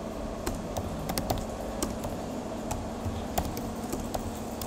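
Typing on a computer keyboard: irregular, quick keystroke clicks as code is entered.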